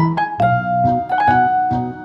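Background music: a keyboard melody of separate struck notes, several a second, over low bass notes.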